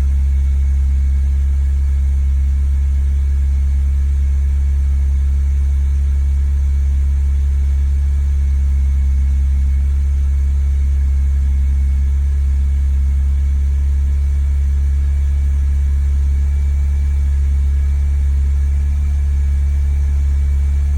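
BMW E46 330Ci's 3.0-litre straight-six idling steadily with its mass airflow sensor unplugged, on a car with a fault that leaves it rough and without power.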